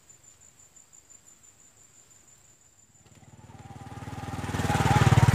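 A steady high insect buzz over quiet forest, then a small motorbike engine coming in about three seconds in and growing steadily louder as it nears, loudest near the end.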